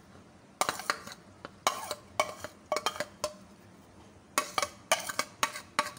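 A metal spoon scraping and clinking against a plate and bowl, in four short bursts of quick strokes, as ground fried onion is scraped off into whipped yogurt.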